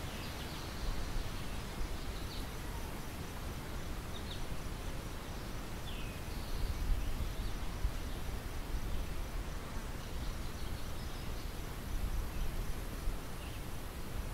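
Wind blowing across an open wheat field: a steady hiss with gusty low rumble from wind on the microphone. A few faint, short high chirps come and go throughout.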